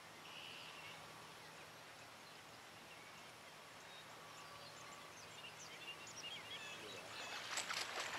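Faint open-air ambience with birds chirping, the calls growing busier and louder toward the end.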